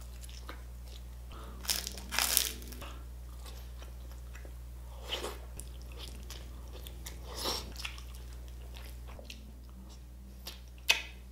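Close-up eating sounds: crunchy bites and chewing of crispy roast chicken and pork. The crunches come in a few separate bursts, the loudest about two seconds in and a sharp one near the end, over a steady low hum.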